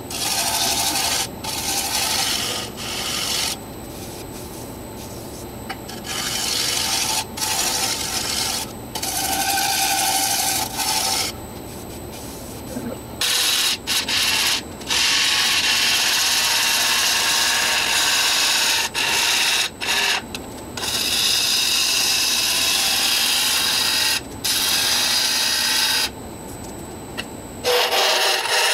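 Turning tools cutting Afghan pine spinning on a Laguna Revo 18|36 wood lathe, a hissing, scraping cut that comes in repeated passes of a second or two, with longer cutting from about halfway through. Between passes the lathe runs on with a steady low hum.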